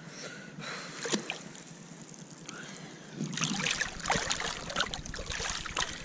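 Shallow rock-pool water sloshing and splashing as hands reach in among the kelp and grip a stone on the bottom, with small knocks and clicks. The splashing gets busier about three seconds in.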